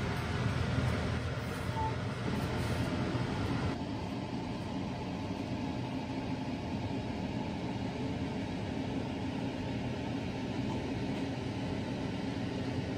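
Steady low rumbling background noise with no distinct events. It turns slightly duller about four seconds in.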